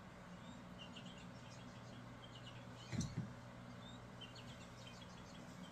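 Electronic cat toy that makes bird sounds when touched, giving a run of short, high bird-like chirps. A single thump comes about three seconds in.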